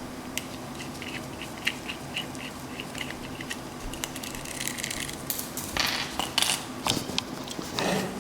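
Light plastic clicks and rustling as a ceiling fan's pull-chain speed switch and its wires are handled, getting busier about six seconds in, over a steady low hum.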